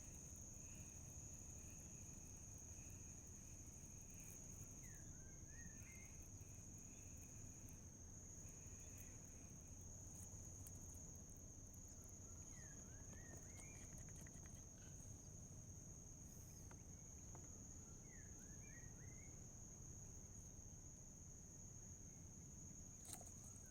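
Faint steady high-pitched trill of insects such as crickets or cicadas, one unbroken tone, with a few short warbling chirps of another animal now and then.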